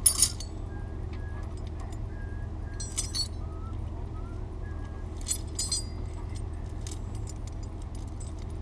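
Metal tow-strap hardware clinking and jangling in short bursts as the strap is handled and hooked to a mower, the loudest right at the start, then again about 3 s and about 5.5 s in, over a steady low hum.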